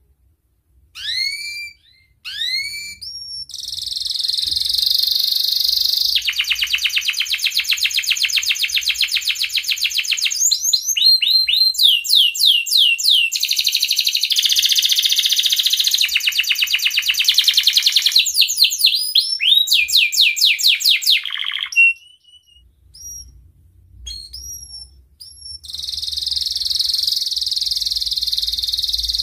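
Domestic canary singing: a few rising whistled notes, then long fast rolling trills and runs of upslurred notes, a short break with scattered chirps, and another rolling trill near the end.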